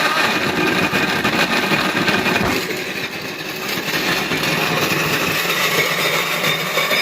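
Kitchen blender running loudly and steadily, its blades grinding a hard tablet of Mexican chocolate in with milk, banana and candy.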